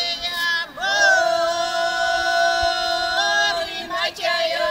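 Group of elderly Bulgarian village women singing a cappella in the Shopi polyphonic style, long notes held by several voices together. The singing breaks off briefly less than a second in and again near the end, with a short upward slide into the note after the first break.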